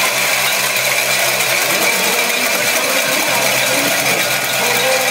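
A stadium crowd ringing many cowbells at once, Mississippi State's game-day tradition, in a dense, steady metallic clatter, with crowd noise underneath.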